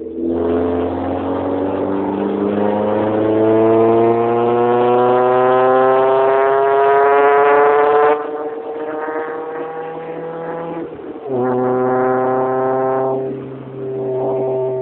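Honda Civic running with a loud, strongly pitched note whose pitch rises steadily for about eight seconds, as under acceleration, then drops away suddenly. It returns twice as shorter, steady-pitched spells, the sound the owner calls horrible.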